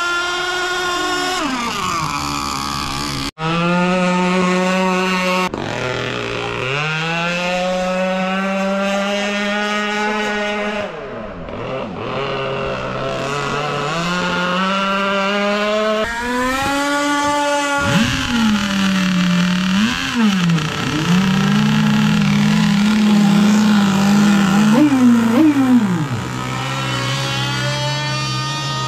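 Small two-stroke gasoline engine of a radio-controlled powerboat, a converted chainsaw engine, running hard. Its pitch rises and falls repeatedly with throttle and turns, with a brief cut-out about three seconds in.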